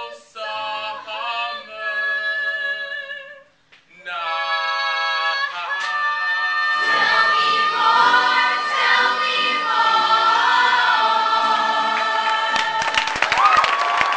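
A group of singers in a school stage musical hold long sung notes, pause briefly, then swell into a fuller chorus with several voice parts. Applause breaks out near the end as the song finishes.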